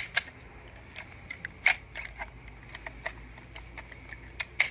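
A few scattered, sharp clicks and snaps of cartridges being thumbed down out of a 3D-printed stripper clip into a K31 rifle's magazine. The loudest clicks come about a second and a half in and just before the end.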